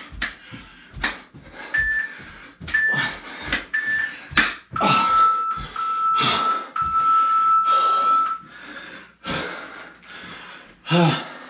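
Workout interval timer signalling the end of the final round: three short high beeps, then three longer, lower beeps, the last one the longest. Heavy panting throughout, with sharp slaps about once a second during the first few seconds.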